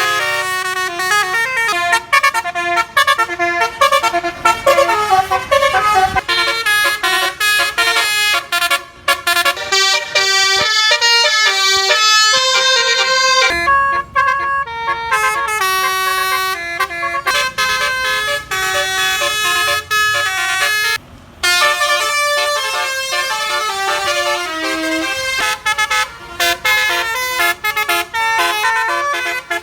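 Telolet basuri, a musical multi-tone bus air horn, playing a tune of quick stepped notes, with a brief pause about twenty-one seconds in.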